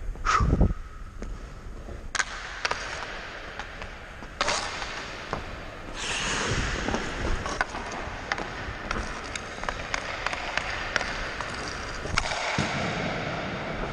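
Ice hockey skates carving and scraping across the ice, with longer hissing scrapes about six seconds in and again near the end, and sharp clicks of stick and puck scattered throughout. A loud thump comes about half a second in.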